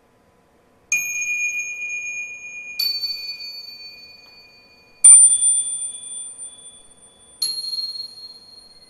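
Four high bell-like chime strikes, about two seconds apart and each on a different pitch, every one ringing and slowly dying away; the third is the loudest.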